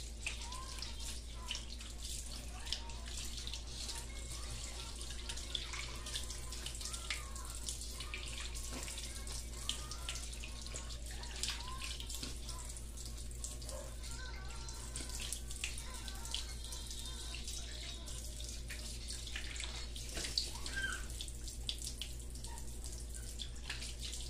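Running tap water and hands splashing water over the face and neck, with irregular splashes and drips over a steady low hum.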